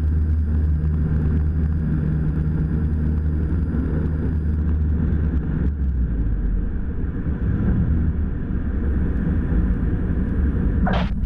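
Cessna 172 engine and propeller heard inside the cabin at takeoff power, a steady low drone that weakens about five seconds in as power comes off for an aborted takeoff. A short hiss comes near the end.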